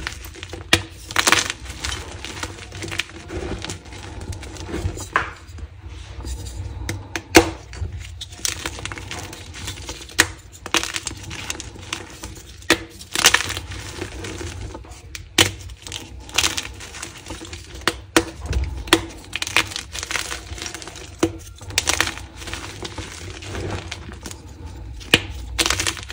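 Dyed gym chalk being crushed and crumbled in the hands: dry crunches and crackles at irregular intervals as the chunks break and fall back onto the chalk pile.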